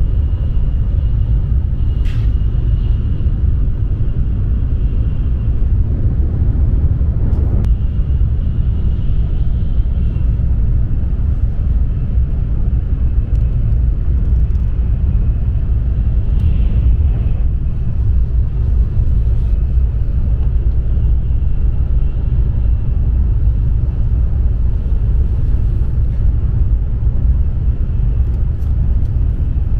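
Cabin noise of an N700S Shinkansen running at speed: a steady low rumble with a faint high whine above it. There are a couple of light clicks within the first eight seconds.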